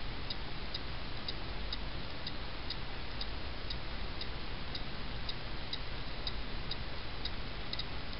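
Faint, regular high ticking, about two ticks a second, over a steady background hiss.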